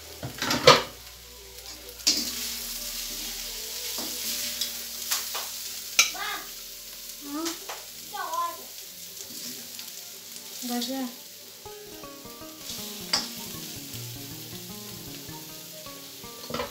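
Mutton sizzling as it fries in a wok, with a metal spoon stirring it and scraping and clinking against the pan a few times. The loudest clink comes about a second in.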